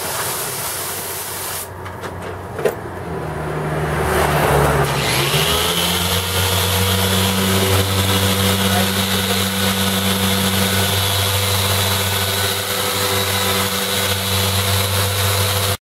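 A brief hiss of water spraying from a hose, then a Griot's Garage dual-action polisher fitted with a 1500-grit foam sanding disc spins up about five seconds in and runs steadily, set on speed 5, wet-sanding the gelcoat of an RV's fiberglass front cap. The running cuts off suddenly near the end.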